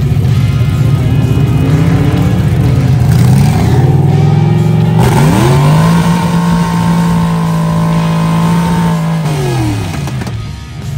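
Ford Falcon gasser's engine revving up in two steps, holding high revs for about three seconds, then falling back toward idle near the end.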